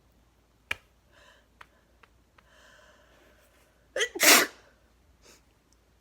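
A woman's single wet sneeze: a drawn-in breath building up, a brief catch, then the loud sneeze about four seconds in. A short click comes near the start.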